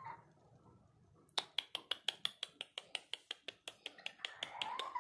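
A fast, even run of sharp clicks, about eight a second, lasting about three seconds, followed near the end by a short call that rises and falls in pitch.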